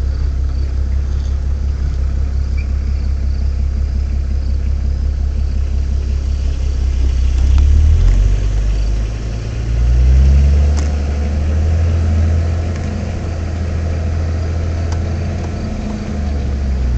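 Nissan Patrol GR Y60's diesel engine heard from inside the cab, running steadily at low revs; about halfway through its note shifts and swells as the revs change, then settles again.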